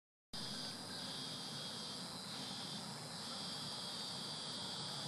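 A steady, high-pitched chorus of insects calling, cutting in abruptly a moment in.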